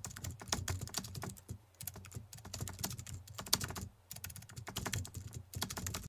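Rapid computer-keyboard typing clicks, a sound effect for text being typed out on screen, with short breaks about two and four seconds in, stopping abruptly at the end.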